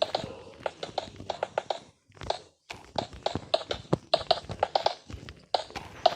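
A quick run of sharp knocks or taps, several a second and unevenly spaced, with a brief pause about two seconds in.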